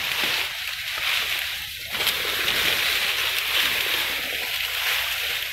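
Tall grass and leafy brush rustling and swishing as people push a path through dense undergrowth, the stems brushing close past the microphone. It is a continuous rough rustle that swells and eases a little without stopping.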